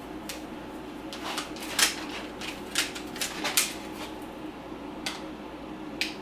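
Tennis ball pressed and rubbed over a rubber traction pad, giving irregular short scuffs and squeaks, a cluster in the first few seconds and two more later, over a steady low hum.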